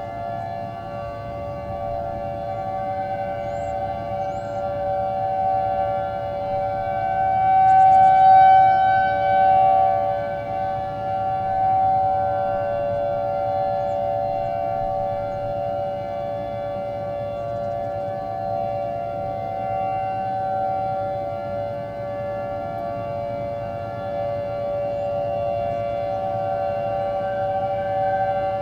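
Outdoor tornado warning siren sounding a steady tone, a chord of several pitches held level. Its loudness swells and fades as the rotating head turns, and it is loudest about eight seconds in.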